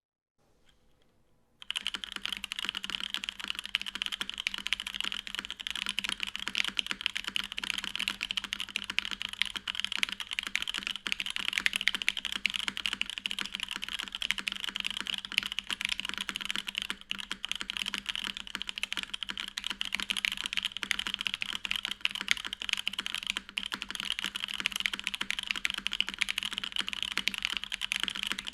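A custom mechanical keyboard being typed on fast and continuously: a dense stream of key clacks that starts a couple of seconds in. It is a DN Rosé case with an aluminum plate, stock unlubed Popu switches, GMK keycaps and TX stabilizers.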